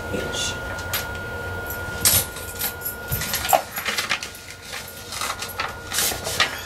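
Paper and a manila envelope being handled: rustling and crinkling with a few sharp clicks and knocks, busiest from about two seconds in.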